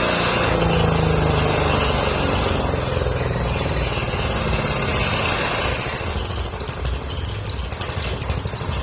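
Engine-driven livestock forage chopper running steadily, a dense mechanical noise over a low pulsing engine beat. About six seconds in, the higher, hissier part of the sound falls away and leaves the rougher engine beat.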